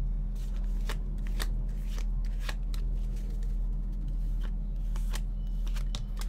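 A tarot deck being shuffled by hand, the cards slipping and snapping against each other in irregular clicks, over a steady low hum.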